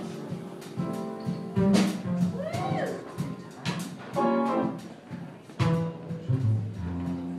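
Jazz guitar playing: a run of sharply struck notes over a low bass line, with one note sliding up and back down about two and a half seconds in.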